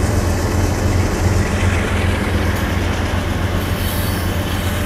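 Union Pacific diesel locomotive running past at close range with a steady low drone, followed by the covered hopper cars of a freight train rolling over the crossing with wheel clatter.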